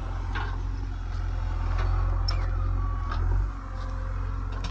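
JCB 3DX backhoe loader's diesel engine running steadily under load while the backhoe arm drags dry brush, with scattered crackles of snapping branches. A short whine drops in pitch and holds briefly about halfway through.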